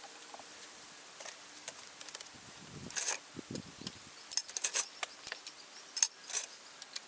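Metal drill press parts and hand tools clicking and clinking as they are handled during disassembly, with sharper clinks about three seconds in, around the middle and again near the end.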